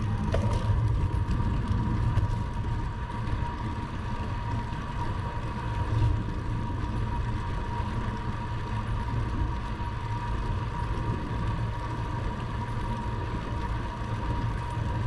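Wind buffeting a handlebar-mounted camera's microphone and bicycle tyres rolling on a paved path while riding, with a steady high-pitched hum over it and a brief louder gust about six seconds in.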